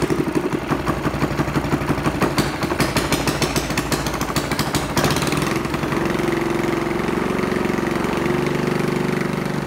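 Predator 212cc single-cylinder four-stroke engine running just after starting, warming up with no alternator load engaged. It runs unevenly for about the first half, then settles into a steadier idle.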